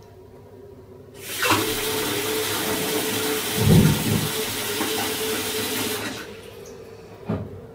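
Hot water tap running, turned on about a second in and off again after about five seconds, drawing water through a tankless gas water heater. A short low thump comes midway through.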